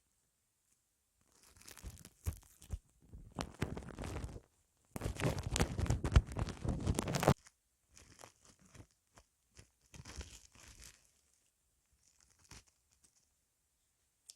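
Close-miked ASMR ear massage: rubbing and scratching right on the microphone's ears, coming in bursts. It is quiet at first, gets loudest for a couple of seconds in the middle, then tapers into lighter strokes and goes almost quiet near the end.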